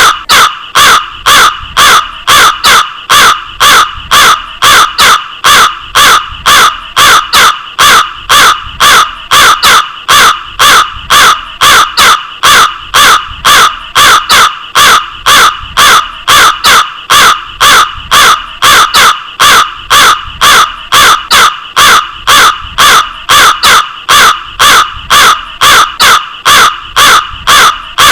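Crow cawing over and over in a fast, even series of harsh caws, about two a second.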